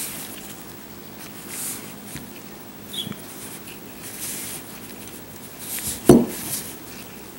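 Latex-gloved hands handling metal red-dot sights on a tabletop: glove rustling and small clicks, with a short knock just after six seconds as a sight is set down on the table.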